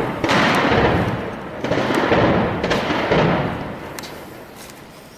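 Rumbling bursts of heavy cannon fire and impacts echoing between the buildings, several in quick succession, dying away after about four seconds. The speaker attributes the shelling to a Shilka anti-aircraft gun vehicle.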